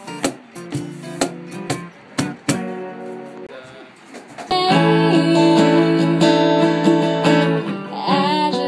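Acoustic guitar playing over sharp percussive hits from a cajon struck with a kick-drum pedal. About four and a half seconds in, it turns louder and fuller with sustained strummed acoustic guitar chords.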